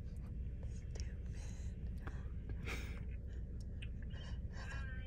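Faint whispered voices inside a parked car's cabin, over a steady low rumble.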